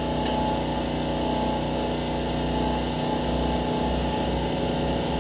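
Evolution cold-cut chop saw running steadily while its blade cuts through steel flat bar, a constant machine drone with several steady tones.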